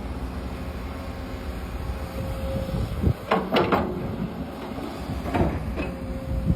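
Komatsu PC200CE excavator running with a steady drone. A few sharp clanks and squeals come about three seconds in and again about five and a half seconds in as it works.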